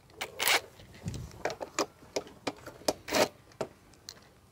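Small clicks and scrapes of a Honda Super Dream's metal fuel-tank cap being worked loose and lifted off the tank, with two longer scraping sounds about half a second in and about three seconds in.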